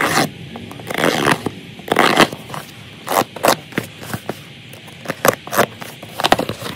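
Hobby knife slitting the packing tape on a cardboard box in several short zipping strokes, followed by quicker scrapes and taps as the box is handled and turned on a hard surface.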